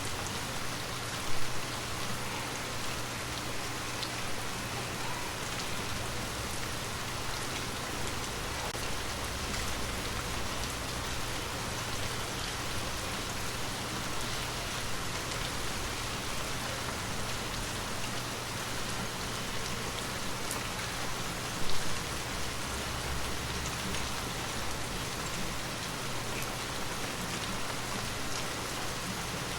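Steady gentle rain falling, with scattered drop ticks over an even hiss. Two brief, louder low thumps come about a second in and again about 22 seconds in.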